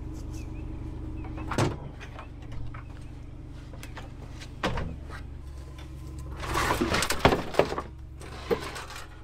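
Knocks and a clattering rattle of chains and tools being shifted about in a pickup truck bed, loudest near the end, over a steady low hum from the idling truck.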